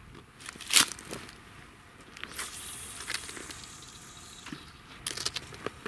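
A small sea bream dropped back into the sea: a short splash about a second in. A steady hiss follows for a couple of seconds, and a few light clicks come near the end.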